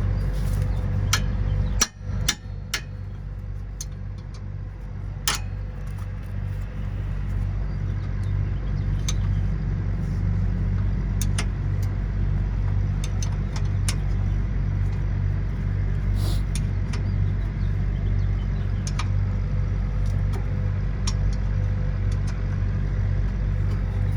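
A 14 mm combination wrench turning a brake caliper bolt, with scattered sharp metallic clicks and clinks as the wrench slips on and off the bolt head. Under it runs a steady low mechanical hum.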